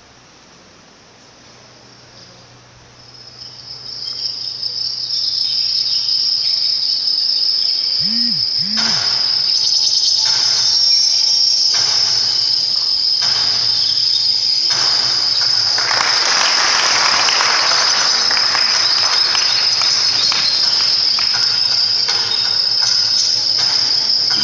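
Cricket chirring: a loud, steady, high-pitched trill that swells up over the first few seconds and then holds without a break.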